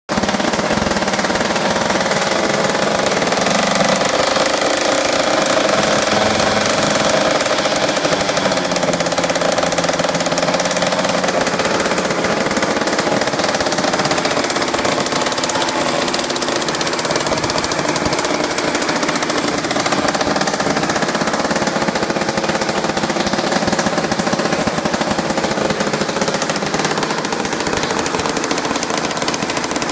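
Antique Eclipse Wasp model 700 gasoline chainsaw engine running very loudly and without a break, with a slight change in its note about a third of the way through.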